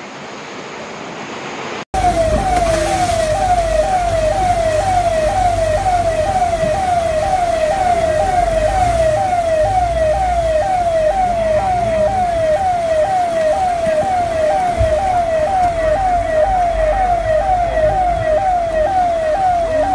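An electronic siren sounding in fast, repeated rising sweeps, about two a second. It cuts in abruptly about two seconds in, over a low rumble.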